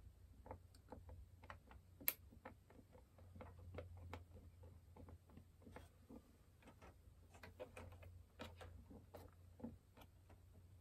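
Faint, irregular clicks and ticks of a small Phillips screwdriver working tiny screws out of a treadmill console's display circuit board, with one sharper click about two seconds in, over a low steady hum.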